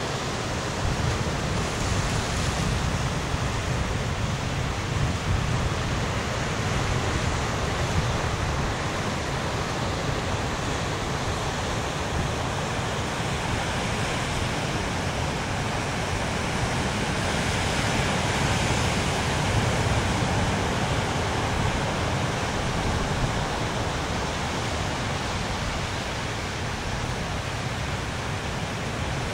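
Steady wash of sea surf and wind on a rocky shore: an even hiss over a heavier low rumble, with no distinct events.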